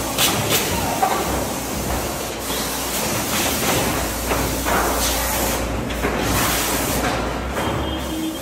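Steady mechanical noise of a large lumber workshop: a low machine hum under a noisy wash, with a few short knocks.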